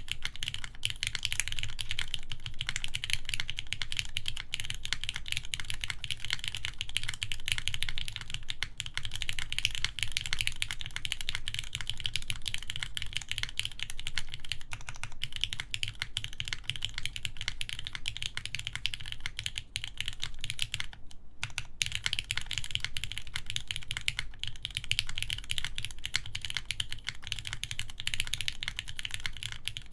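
Continuous fast typing on an RME Studio Alas mechanical keyboard: Gateron X linear switches lubed with Krytox 205g0 in a full aluminum plate, under GMK keycaps, with lubed clip-in stabilizers. The keys clack in a dense stream, with a brief pause about two-thirds of the way through.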